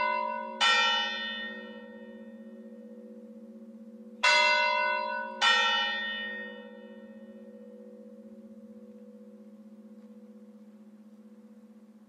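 Bells struck in ding-dong pairs, a higher tone and then a lower one about a second apart. One strike comes just under a second in, and another pair around four and five seconds in. Each strike rings out over a couple of seconds above a long, pulsing low hum that slowly fades.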